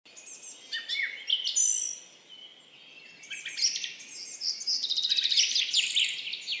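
Songbirds singing and chirping: short whistled notes that slide up and down, then a fast, dense trill that is loudest from about four and a half to six seconds in.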